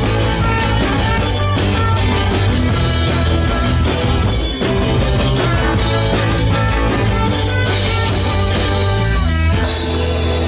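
Live rock band playing loudly: electric guitar close up, over drums, a strong bass line and trumpet.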